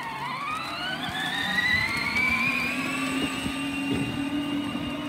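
Electric drive motors of a battery-powered kids' ride-on UTV whining as it pulls away towing a loaded trailer. The whine rises in pitch over the first two seconds, then holds steady.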